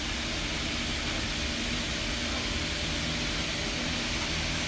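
Old-model Toyota Camry four-cylinder engine running steadily, an even hum with faint steady tones.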